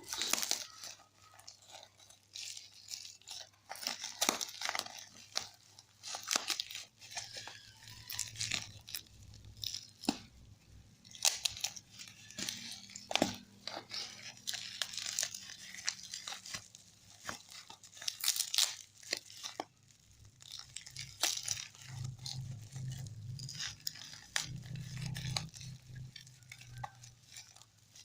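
A parcel being unwrapped by hand: packaging torn open and plastic wrapping crinkled, in many irregular short rustles and clicks.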